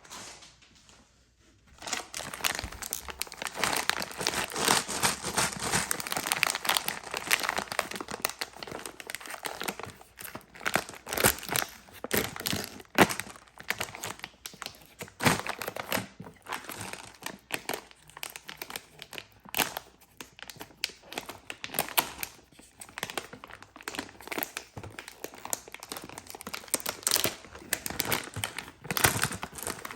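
Candy and chocolate wrappers crinkling and tearing as the packages are opened by hand, starting about two seconds in and going on as a dense run of crackles and sharp snaps.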